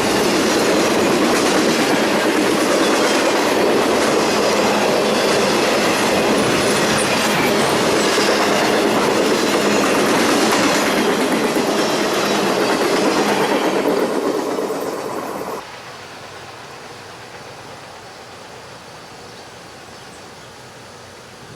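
Freight train cars rolling past at speed, wheels clicking over the rail joints with some wheel squeal. About three-quarters of the way through the sound drops away suddenly, leaving a much quieter background.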